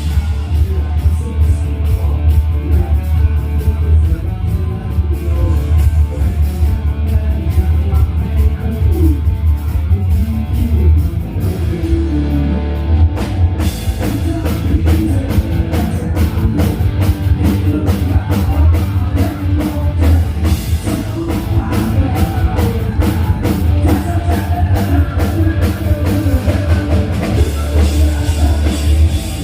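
Rock band playing loud through a PA system during a sound check: drum kit and electric guitar over heavy, booming bass. The cymbals drop out briefly about halfway through, then come back.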